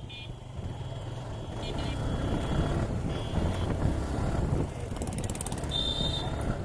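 Motorcycle ride through congested city traffic: a steady low rumble of the Suzuki Gixxer 155 and the surrounding road noise, with short, faint horn toots from other vehicles a few times.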